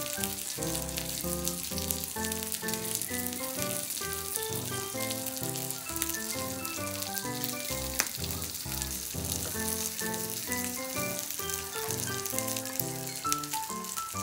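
Yakitori skewers and breaded pieces sizzling on an electric hot plate, a steady crackle with fine pops, under background music with a melody of short notes. One sharp click comes a little past the middle.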